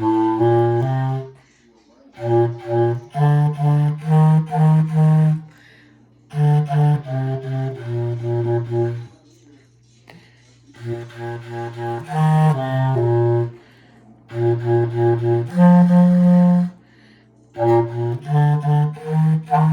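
A single low-pitched wind instrument playing a band part alone: short phrases of quick, separately tongued notes, broken by brief rests about every three to four seconds.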